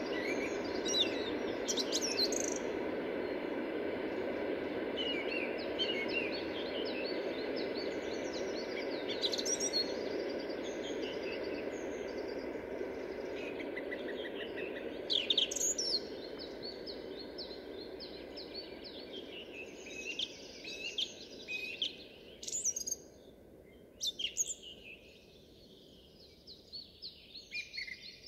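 Song thrush singing: a string of varied high phrases, many built from one note repeated several times in quick succession. A steady low background rumble under the song fades away about two-thirds of the way through.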